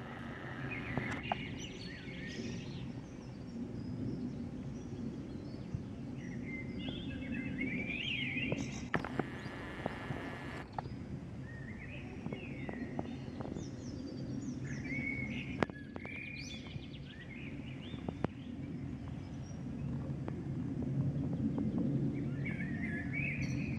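Steady low rumble of a jet aircraft flying overhead, growing slightly louder near the end, with songbirds chirping in short phrases throughout.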